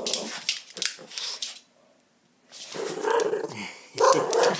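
Dog rubbing and rolling against a wooden floor, with quick scratchy scuffs of fur and claws, then after a brief break two bouts of low grumbling growls in the second half. The dog is drying itself off after a bath.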